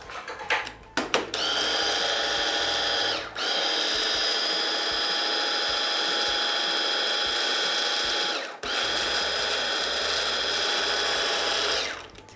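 KitchenAid hand blender running on its chopper attachment, puréeing a tofu, garlic and herb mixture into a cream. A few clicks as the motor unit is seated on the chopper lid, then a steady motor whine from about a second in. It lets up briefly twice and stops near the end.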